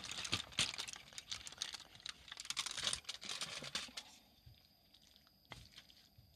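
Aluminium foil crinkling and crackling as it is handled, a dense run of small crackles that stops about four seconds in, followed by one sharp click a little later.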